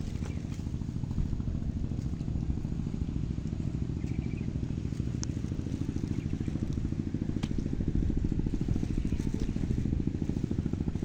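A small engine running steadily with a fast, even low pulse, and a couple of faint clicks partway through.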